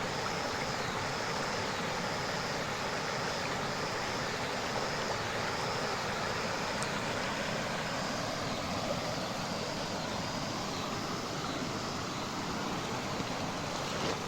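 Steady rush of flowing creek or river water. Over it, a high, even chirp repeats about twice a second and stops a few seconds before the end.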